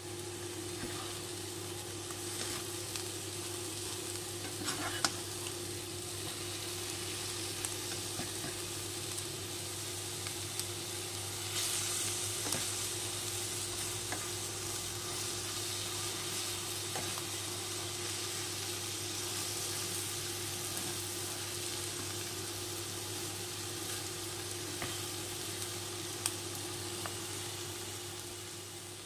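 Bitter melon and egg sizzling in a nonstick frying pan, with occasional scrapes and taps of a spatula stirring. The sizzle briefly gets louder about twelve seconds in, and a steady low hum runs underneath. The sound fades out at the end.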